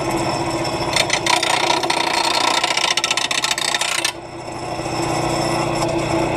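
Electric mower blade sharpener running, its grinding wheel grinding the edge of a Dixie Chopper mower blade with a harsh, rough scraping from about a second in until about four seconds in, then the motor hums on alone.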